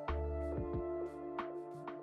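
Background music: a run of plucked notes over held tones.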